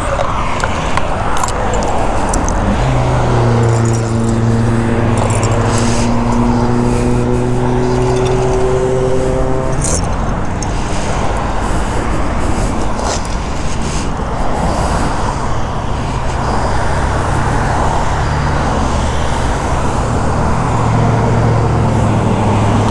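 Freeway traffic passing close by: a steady rush of tyre and road noise. About three seconds in, a vehicle's low engine drone comes up and rises slightly in pitch for about seven seconds before dropping away.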